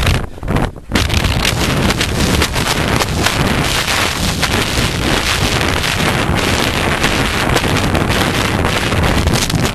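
Wind rushing over a rider-worn camera's microphone during a cross-country ride on horseback: a loud, steady roar that drops away briefly for about half a second just after the start.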